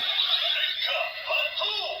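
Kamen Rider Saber DX Seiken Swordriver toy belt playing its transformation sound effect through its small speaker: electronic music with a synthesized chanting voice, for the combined three-book legend rider form.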